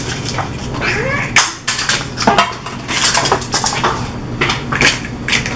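Metal muffin tins clinking and rattling in irregular sharp clicks as paper cupcake liners are pressed into the cups and the tins are handled.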